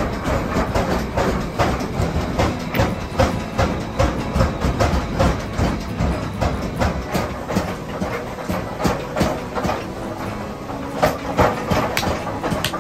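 Metalworking shop din: a rapid, irregular clatter of metal knocks over a low, steady machine rumble.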